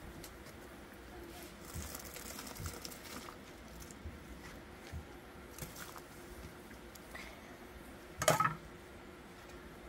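Kitchen handling noises in a small room: scattered soft knocks and rustling, with one louder clatter about eight seconds in.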